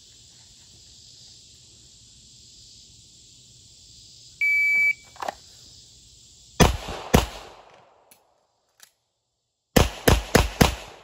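A shot timer beeps once, then a Smith & Wesson M&P 9mm pistol fires two shots about half a second apart. After a pause of about two seconds for a slide-lock reload, it fires four quick shots. A steady insect buzz sits underneath until the first shots.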